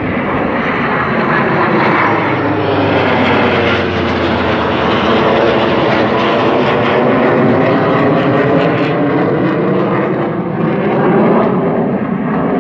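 Formation of two jet fighters and a propeller warbird flying past: a loud, steady engine drone whose pitch slowly sinks as the aircraft go by.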